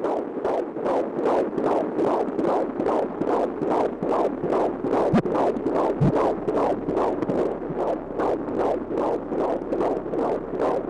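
Fetal heartbeat heard through a Doppler ultrasound: a fast, even train of whooshing pulses, about two and a half a second. There is a brief low bump about six seconds in.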